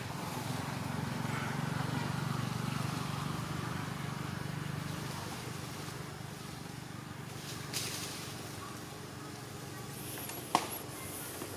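A low, steady rumble that swells over the first few seconds and then slowly fades, with a sharp click about ten and a half seconds in.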